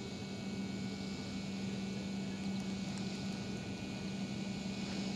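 Quiet outdoor background with a steady low hum.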